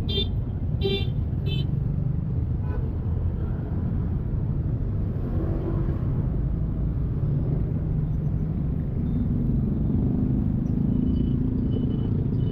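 Motorbike riding in street traffic: a steady low engine and road rumble, with three short horn toots in the first two seconds.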